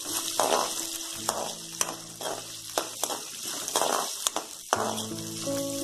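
Shallots, lentils and dried red chillies sizzling in hot oil in a metal pan, stirred with a steel ladle, with repeated scraping strokes about every half second to second.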